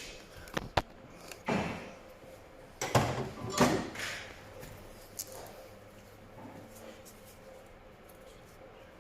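Metal car parts being shifted by hand: a few sharp knocks, then two longer scraping, sliding clatters about one and a half and three seconds in, after which it goes quiet.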